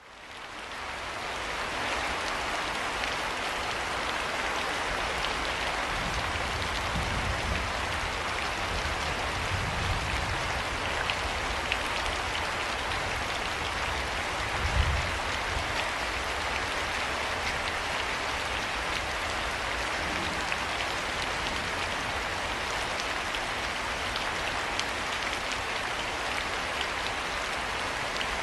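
Steady rain falling, fading in over the first two seconds, with a few brief low rumbles underneath.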